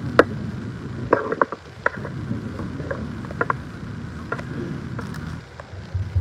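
Handling noise from a lectern microphone being adjusted by hand: irregular clicks and knocks over a low rumble, with a thump near the end.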